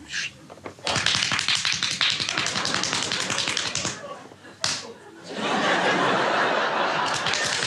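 Dense, fast clapping, like many hands applauding. It drops away about four seconds in and comes back louder a second or so later.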